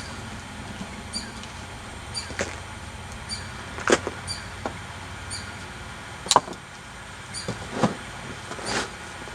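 Gloved hands digging through wet potting soil in a fabric grow bag, with irregular rustling and scraping and several sharp knocks, the loudest a little past the middle.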